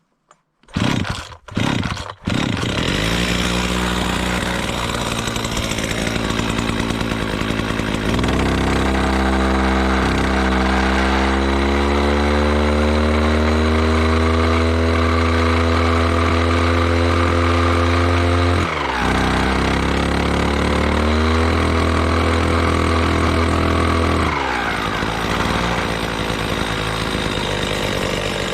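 Husqvarna 240R brushcutter's two-stroke engine, running on its worn, not-yet-rebuilt Walbro carburettor. It is pull-started with a few quick pulls and catches about two seconds in, then idles. It is brought up to a higher steady speed, dips briefly about two-thirds of the way through, and drops back to idle near the end.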